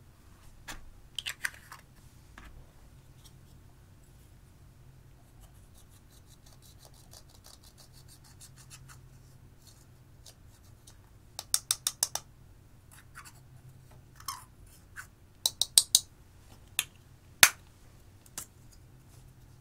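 A small metal spatula scrapes crumbled pressed eyeshadow out of its plastic pan, giving a fast run of fine scratchy ticks. Clusters of sharp clicks and taps follow as the pan and tools knock against the dish, with one loudest click near the end.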